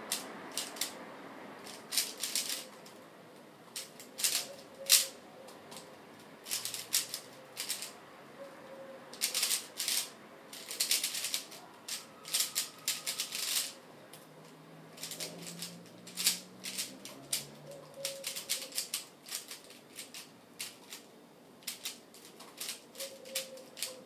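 Rubik's Cube being turned at speed: rapid bursts of plastic clicking and rattling as the layers snap round, with short pauses between bursts.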